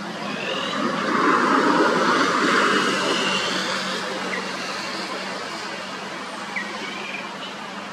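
A motor vehicle passing: a broad noise that swells about a second in and slowly fades over the next few seconds, over a steady low hum. A few short chirps come in the second half.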